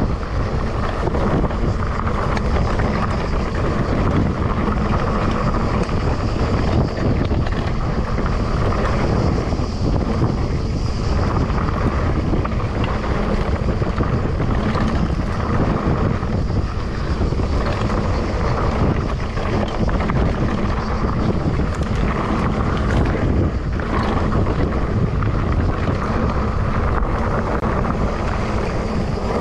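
Continuous wind rush on the microphone of a Cube Reaction mountain bike riding a dry dirt trail, mixed with tyre noise on the loose ground and the bike rattling over bumps.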